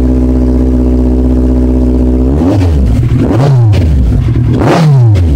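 Kawasaki Z1000's inline-four through a Two Brothers aftermarket exhaust, running steadily, then blipped three times, each rev rising and dropping back quickly, the last one about five seconds in the highest.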